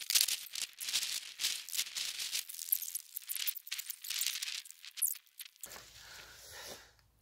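Walking sounds played sped up: a rapid, rattling rustle of footsteps and movement. It drops away about five and a half seconds in, leaving a faint low rumble.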